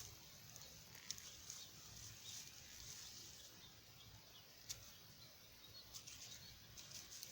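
Near silence: faint outdoor background hiss with a few soft clicks.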